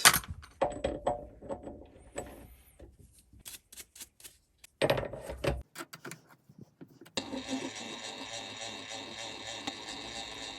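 A few handling clicks and knocks, then about seven seconds in a mini metal lathe is switched on and runs steadily with an even motor and gear hum.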